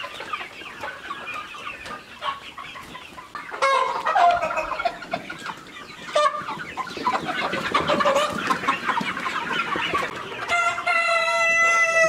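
A large flock of desi (gavran) chickens clucking and calling all at once. A short loud call rises out of it about four seconds in, and near the end a rooster crows in one long held call.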